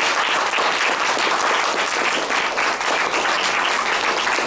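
Class audience applauding with a steady run of clapping.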